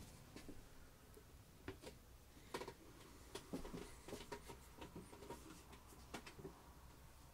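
Near silence in a small room, with scattered faint clicks and taps.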